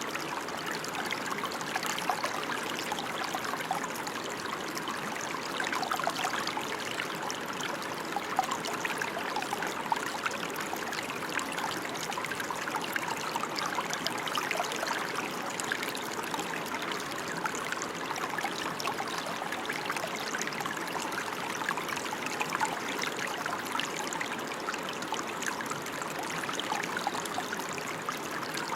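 Steady rain falling, a dense even hiss of many small drop hits that neither builds nor fades.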